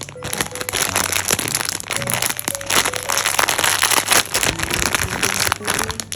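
Packaging crinkling and crackling in the hands, a dense run of fine crackles that stops abruptly near the end, over soft background music with chime-like notes.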